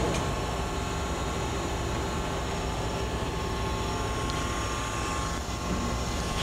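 Swisher Mark V surface grinder's grinding spindle still running with the rest of the machine shut off: a steady, quiet hum with a low rumble underneath.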